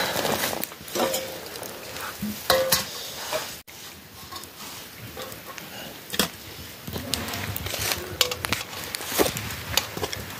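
Metal ladle scraping and clinking against a metal rice pot and a steel plate as cooked rice is scooped and served, in scattered short knocks and scrapes.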